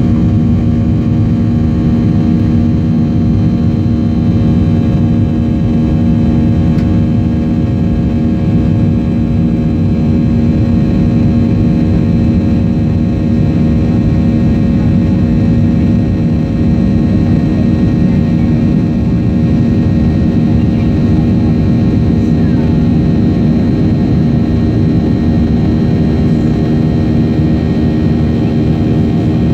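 Jet airliner cabin noise during the climb after takeoff: steady engine noise, heaviest in the low end, with several steady whining tones over it and no change in level.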